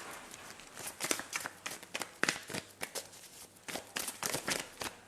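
Tarot cards being shuffled by hand: a soft rustle, then from about a second in a quick, irregular run of sharp card snaps and flicks that stops near the end.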